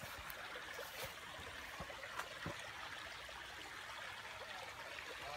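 A woodland stream running, a faint, steady rush of water, with a few soft clicks on top.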